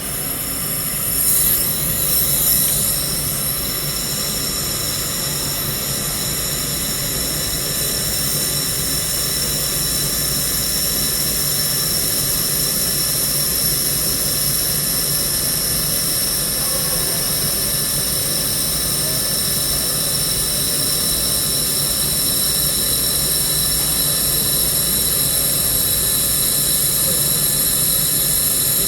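Handheld laser welding machine running: a steady hum with several high, steady whining tones over a hiss. There is a louder swell with wavering high tones about one to three seconds in.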